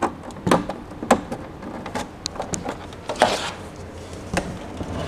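Scattered light clicks and knocks from hands working at the back of a flat-screen TV, plugging in an HDMI cable, with a slightly fuller knock about three seconds in.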